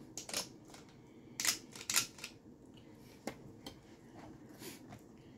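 Plastic portion scoop and spatula handling muffin batter: a handful of short clicks and scrapes as batter is scooped from a plastic bowl, levelled and released into a silicone muffin form.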